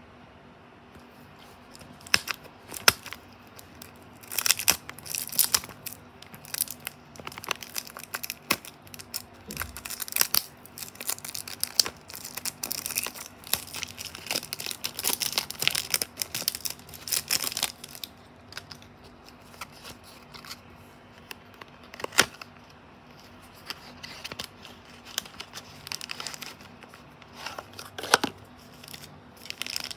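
Small cardboard Tomica toy car box being torn open and handled: irregular tearing and crinkling, densest through the first half, then sparser, with a few sharp clicks later on.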